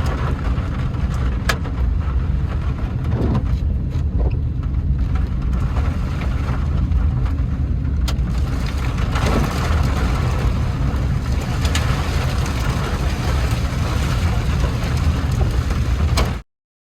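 A car driving in heavy rain: steady low engine and road rumble under a hiss of rain, with scattered sharp taps. The sound cuts off suddenly near the end.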